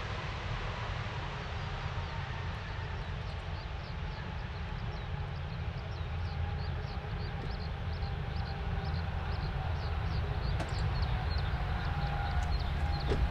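Boeing 787-8 airliner with Rolls-Royce Trent 1000 engines rolling out on a wet runway after landing: a steady low rumble with a faint engine whine, growing louder in the last few seconds. Short high chirps repeat several times a second from about two seconds in.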